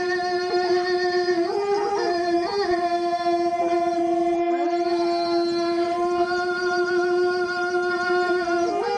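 Background music: a slow melody of long held notes that step a little up and down in pitch.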